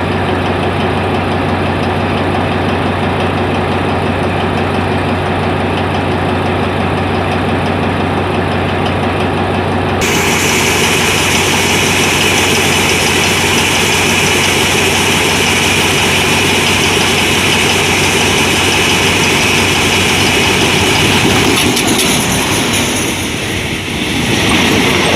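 Diesel locomotive engine running with a steady low hum; about ten seconds in, a loud hiss joins it abruptly and stays to the end.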